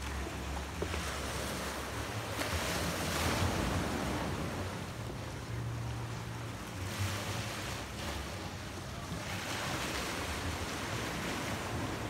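Small sea waves washing in over shoreline boulders, surging louder twice and ebbing between, with wind rumbling on the microphone.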